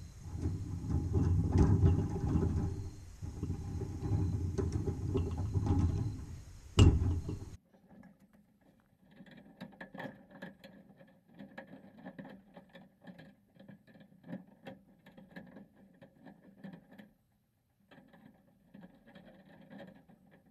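Low rumbling handling noise with a sharp knock about seven seconds in, then a sudden drop to quiet, irregular clicks and light rattles of chain-link wire being worked by hand at the fence, over a faint steady chirr of crickets.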